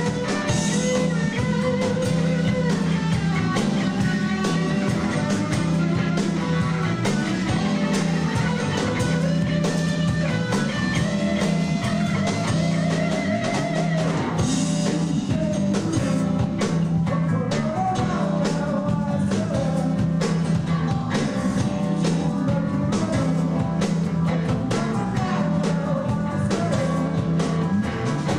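Live rock band playing: electric guitars over a bass guitar and a drum kit with a steady beat, a melodic lead line wandering above the chords.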